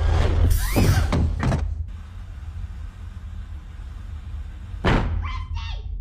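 A burst of loud noise over the first second and a half, then a low steady hum, then a sudden bang about five seconds in followed by a child's voice crying out.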